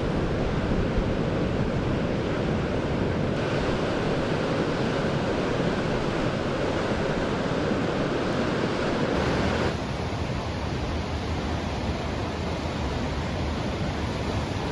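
Heavy storm surf: waves breaking and rushing in a continuous roar, with wind buffeting the microphone. The sound changes abruptly about three seconds in and again about ten seconds in.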